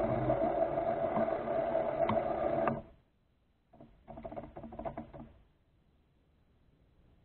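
Small electric motors and gear drive of a remote-control rover running with a steady whine, cutting off suddenly about three seconds in. A short rattly burst with clicks follows a second later.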